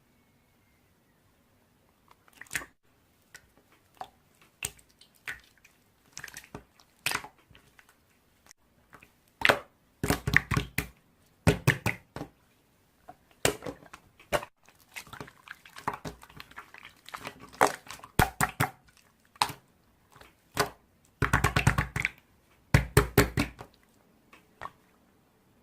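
Slime being pressed, squeezed and poked by hand: irregular sticky clicks and small pops, with louder, denser squelching and crackling about ten seconds in and again around twenty-one seconds in.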